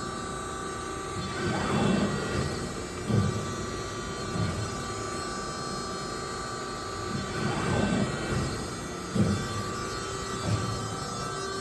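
Amada HFE 220-4S hydraulic CNC press brake running, its hydraulic pump humming steadily under louder low surges that come in two groups of three, about a second and a half apart.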